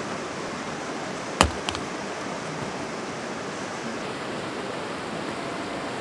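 One hatchet chop into a firewood log about a second and a half in, a sharp knock followed by a couple of faint clicks, over the steady rush of a fast, rocky river.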